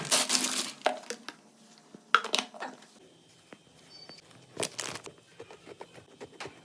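Plastic or paper packaging being handled, rustling and crinkling in three short bursts with light clicks and knocks in between.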